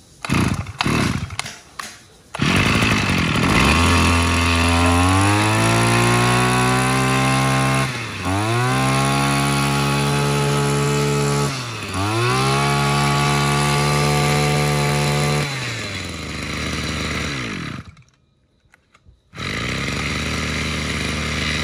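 Maruyama 20cc two-stroke brush cutter engine pull-started: a few short catches, then it runs and is revved up to a high whine three times, with the throttle let off briefly between revs. It drops back to idle, cuts out, and is running again near the end.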